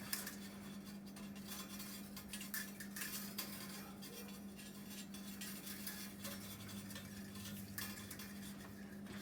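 Faint clinking and rattling of metal tools and parts being handled on a workbench, a scatter of small clicks over a steady low hum.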